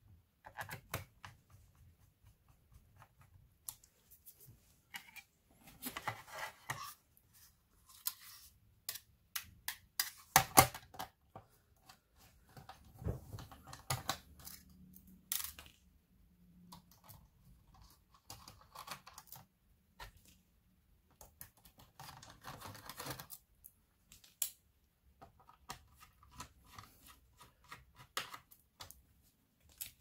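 Irregular clicks, taps and scrapes of a small screwdriver and of plastic and metal parts being handled on a laptop's underside as the hard drive in its metal caddy is taken out, with one sharp knock about ten and a half seconds in.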